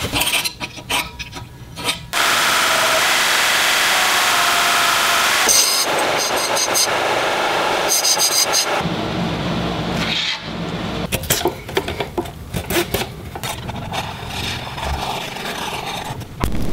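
Bench grinder grinding a piece of metal held in locking pliers against its wheel: a loud, steady grinding rasp from about two seconds in to about ten seconds in. Scattered clicks and knocks of metal being handled before and after.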